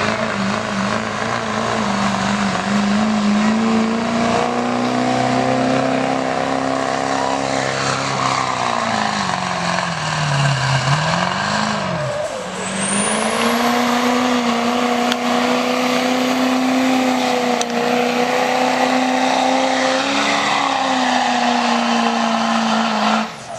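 Pulling vehicle's engine held at high revs under load down the track. Its pitch sags and dips twice around ten seconds in, climbs back and holds steady, then cuts off abruptly just before the end.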